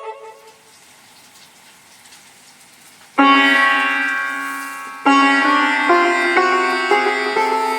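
Roland XPS-30 keyboard playing its sitar voice. After a short pause, one note rings out about three seconds in and fades, a second note comes about five seconds in, and then a few quicker notes follow.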